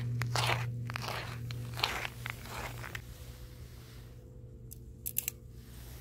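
Footsteps crunching on icy, crusted snow, a step roughly every half second, dying away after about three seconds. A few sharp clicks follow about five seconds in.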